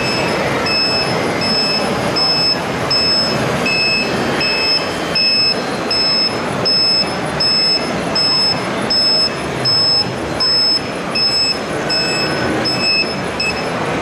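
Reversing warning beeper of a radio-controlled model vehicle sounding over and over, a high-pitched beep about every 0.7 seconds, with hall crowd noise behind it.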